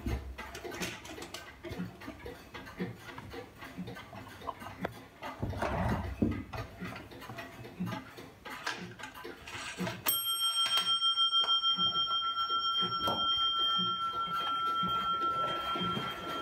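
Small brass bell of an 1820 Black Forest clock struck once by the striking train about ten seconds in, ringing on with a clear wavering tone that fades only slowly. Before it, small clicks and knocks of the dial and hands being handled as the strike is set.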